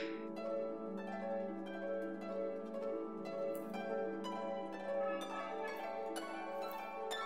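Background music: a gentle plucked-string, harp-like melody over a held low note.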